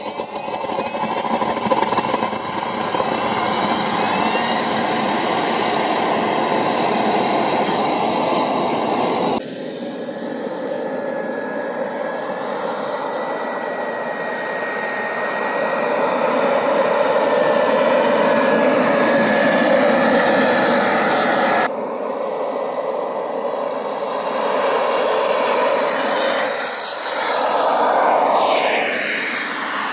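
Xicoy X-45 model turbine jet engine in an RC Freewing F-22, with a high whine rising steeply in the first couple of seconds as it spools up, then running steadily. The sound jumps abruptly twice. Near the end the whine sweeps in pitch as the jet accelerates across the ice.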